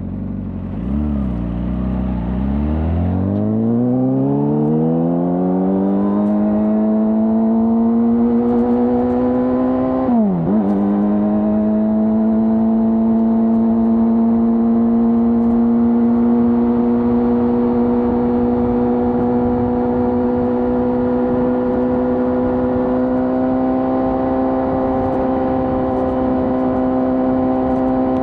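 Honda CBR600RR's inline-four engine on its stock exhaust, pulling hard with its pitch climbing steeply, then a quick drop and recovery about ten seconds in as it shifts gear, after which it runs at a steady cruising pitch.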